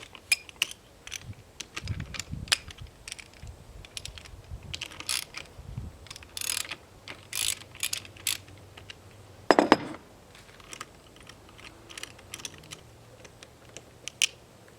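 Socket ratchet clicking in repeated strokes as a terminal nut on an outboard starter solenoid is loosened to free the hot wire, with a single louder metallic knock about two-thirds of the way through.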